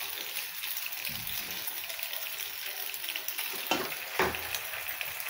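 Boiled macaroni being tipped from a steel bowl into a hot frying pan of egg masala, hissing steadily as the wet pasta meets the hot oil. Two short knocks come a little past the middle.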